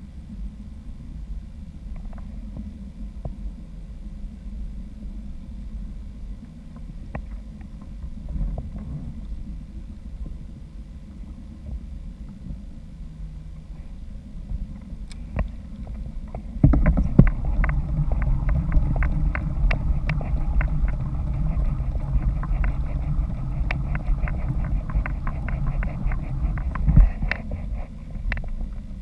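Wind buffeting the microphone and water moving around a kayak: a steady low rumble. It grows louder about two-thirds of the way through, joined by a rapid run of ticks.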